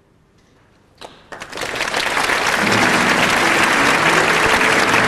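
Audience applauding: clapping breaks out about a second in and quickly swells to loud, steady applause.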